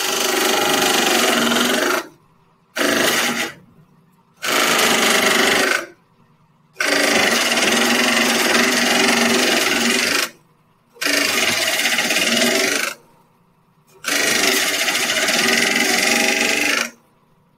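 Benchtop drill press boring through a wooden board with a Forstner bit as the feed handle is lowered: the motor and cutting bit under load, in six bursts of one to four seconds with short quiet gaps between.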